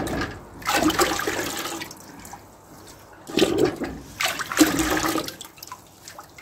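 Runny calcium carbonate slurry sloshing in a metal bucket as a new crucible is swished around in it by hand, in three splashy surges.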